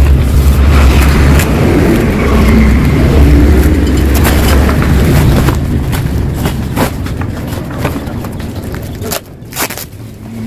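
Yamaha RX-King's single-cylinder two-stroke engine running and revving through its previously drilled-out (bobok) exhaust, loud in the first half and easing off a little past halfway.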